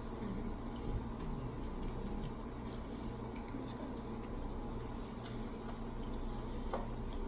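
Close-up eating sounds: chewing with soft, wet mouth noises and scattered small clicks.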